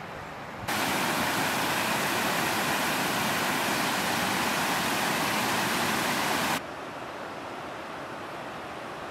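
Small mountain creek cascading over rocks: a loud, steady rush of water that cuts in abruptly about a second in and stops abruptly near the end of the sixth second. A softer steady hiss of outdoor background noise comes before and after it.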